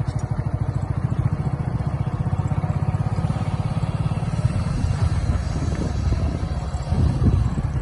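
Engine of the vehicle carrying the recorder, running with a fast, even low throb that grows less regular in the last few seconds.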